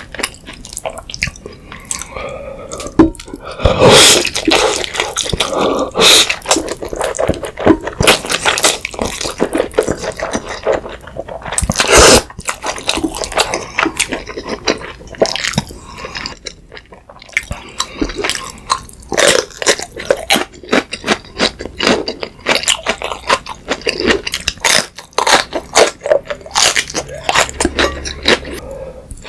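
Close-miked mouth sounds of a person eating jjapaguri black-bean noodles: wet chewing smacks and clicks run throughout, with louder noodle slurps about four seconds in and again near twelve seconds.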